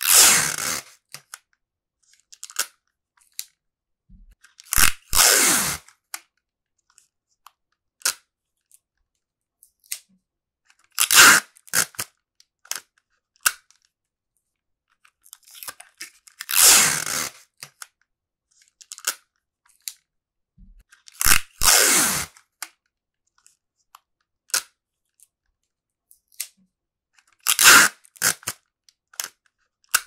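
Clear adhesive tape (Scotch tape) pulled off the roll with a loud tearing rip and cut on a dispenser's small metal teeth. This happens about six times, roughly every five seconds, with small clicks and taps between the pulls.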